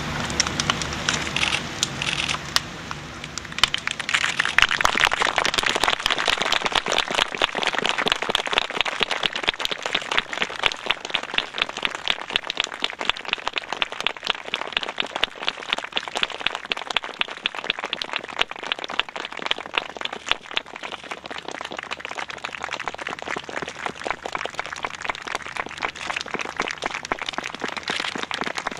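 A burning grand piano: the fire crackles loudly and densely, a steady stream of fine snaps and pops. A few low sustained tones fade out in the first three seconds.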